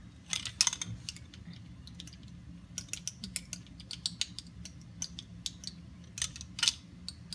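Light clicks and ticks of a measuring spoon scooping mustard seeds from a small spice jar and knocking against it, with the seeds rattling, scattered irregularly over a low steady hum.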